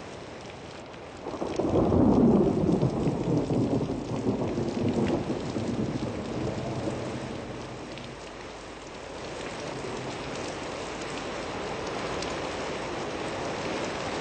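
Thunder rolling over steady rain: a long low rumble starts about a second in and dies away over several seconds, then the rain hiss grows louder near the end.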